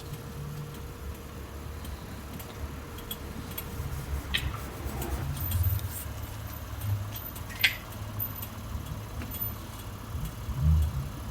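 A 200-series Toyota Crown Athlete with a low running rumble, and two short sharp clicks about four and eight seconds in, while it is checked for a suspension noise that the mechanics place on the right side.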